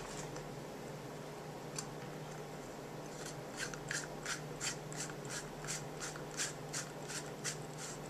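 Faceplate of a push-button spincast fishing reel being screwed back on by hand: a faint run of short scraping strokes, about three a second, as the threads turn.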